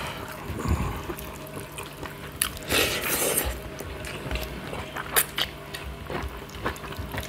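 Wet eating sounds of fingers mixing rice with fish curry on steel plates: squelching, lip smacks and chewing clicks, with a longer wet smear about three seconds in.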